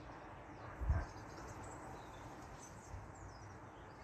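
Quiet garden ambience with faint, scattered high bird chirps, and one soft low thump about a second in.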